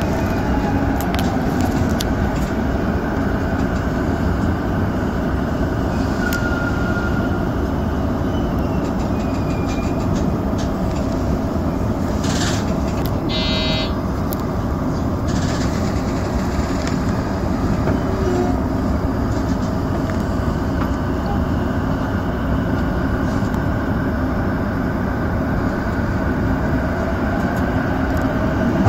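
Electric commuter train running through a tunnel, heard from the front of the train just behind the driver's cab: a steady rumble of wheels on rail. A brief high tone sounds about thirteen seconds in.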